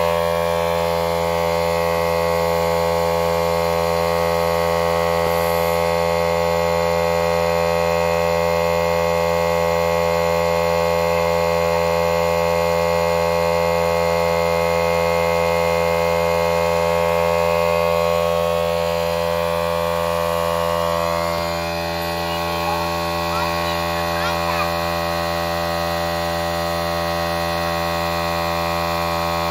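Electric air pump running with a steady, unchanging hum while inflating an air mattress.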